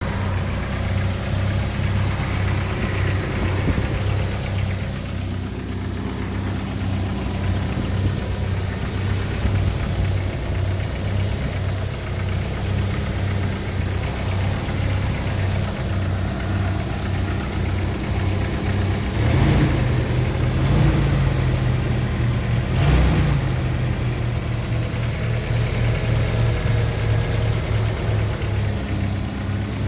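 Jeep 2.5-litre engine idling with an even, repetitive knock like lifter tick, which the owner says is not a lifter noise because it stayed the same after new lifters were fitted. The revs rise briefly twice past the middle.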